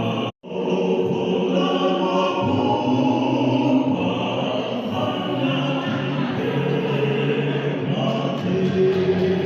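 Vocal quartet singing, several voices together in harmony. The sound drops out completely for a split second just after the start.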